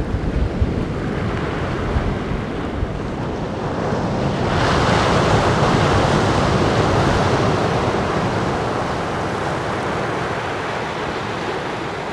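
Surf breaking and washing up a sandy beach, with wind buffeting the microphone. A wave swells up about four and a half seconds in and slowly fades away.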